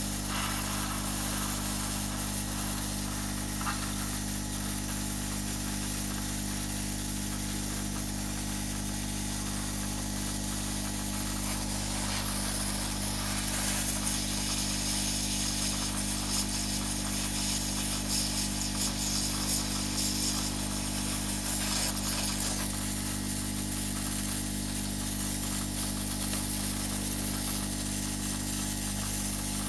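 Hot-air rework gun of an Aoyue 968A+ soldering station blowing steadily: a constant airflow hiss over a low steady hum, with an occasional light click.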